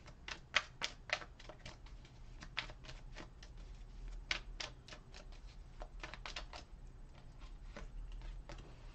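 A tarot deck being shuffled by hand: a run of light, irregular card clicks and snaps, about two or three a second.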